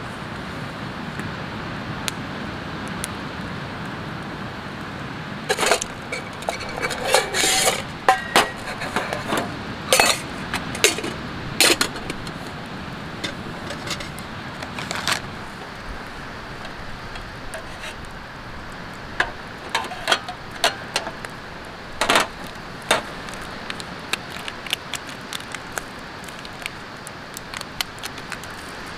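Clinks and knocks of stainless-steel camp cookware (pot, mug and spoon) being handled, in two bursts of sharp metallic strikes over a steady background noise.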